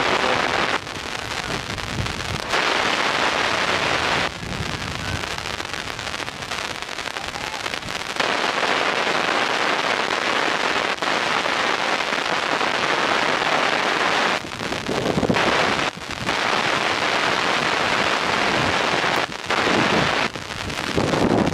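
Wind buffeting an outdoor camera microphone: a loud rushing hiss that cuts abruptly between stronger and weaker gusts.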